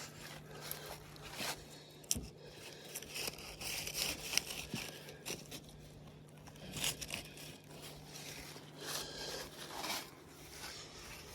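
Footsteps crunching and rustling through dry weeds, with irregular crackles, over a faint steady low hum.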